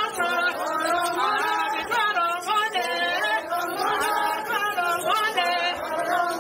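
A group of women singing together without instruments, many voices overlapping in a lively song.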